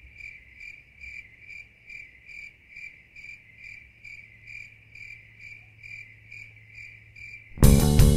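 A cricket chirping steadily, about three chirps a second, a clean high-pitched chirp over near silence. Near the end it cuts off and loud guitar music starts suddenly.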